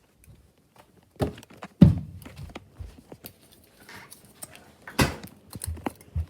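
Several hard knocks and thumps of objects being handled, the loudest about two seconds in and another near five seconds, with light clattering between them.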